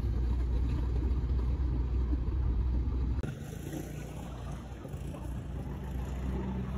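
Road and engine noise inside a moving car's cabin, a steady low rumble. About three seconds in, it cuts off abruptly to a quieter, hissier outdoor ambience.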